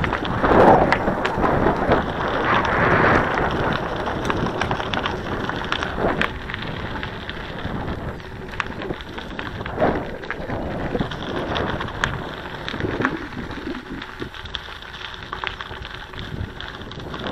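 Wind buffeting a bike-mounted camera's microphone while tyres crunch over a gravel dirt road, with many scattered clicks and rattles. Louder gusts in the first few seconds, then it eases.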